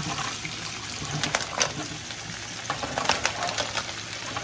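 Mussel shells clattering and clicking against each other and the pan as a bucketful is tipped into hot butter, which sizzles steadily underneath.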